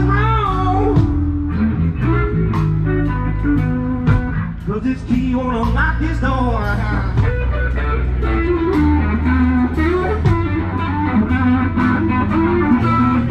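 Blues music: a guitar plays bending lead lines over bass and a steady beat, with no singing.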